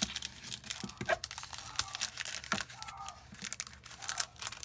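Crinkly trading-card packaging being torn open and handled, with irregular tearing and crackling throughout.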